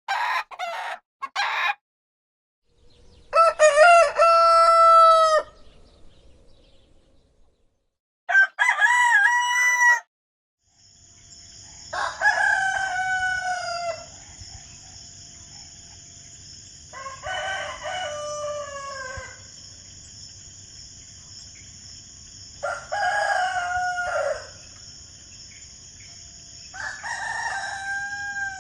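Roosters crowing cock-a-doodle-doo: three short calls, then six full crows a few seconds apart, from several recordings. From about a third of the way in, a steady high-pitched hiss runs behind the crows.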